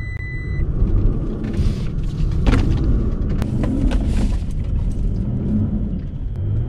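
Toyota pickup's engine running hard under load as the truck ploughs through deep, soft silt, heard from inside the cab, with scattered clicks of dirt striking the body. A short electronic beep sounds right at the start.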